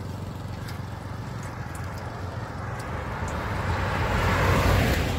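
A vehicle passing on the road: its noise swells to a peak about four and a half seconds in and then starts to fade, over a steady low rumble and a few faint clicks.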